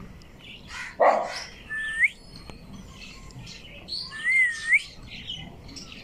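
Indian ringneck parakeet calling at its reflection: a harsh squawk about a second in, ending in a short rising whistle, then a wavering whistle with scratchy chatter around four seconds in.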